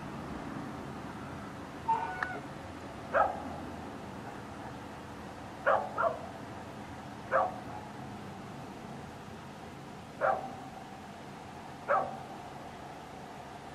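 An animal giving seven short, sharp calls at irregular intervals, two of them close together, over a steady background hiss.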